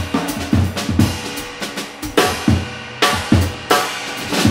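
Jazz drum kit played alone, as in a solo break: snare, bass drum and cymbal strokes at an uneven pace, some hits ringing on.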